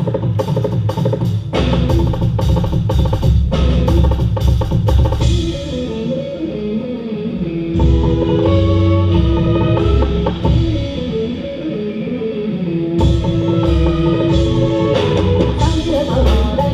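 Live Carnatic progressive rock band playing an instrumental passage with drum kit, electric guitars and bass guitar. The drums and cymbals drop back after about five seconds to a lighter stretch with long held notes, then come back in full near the end.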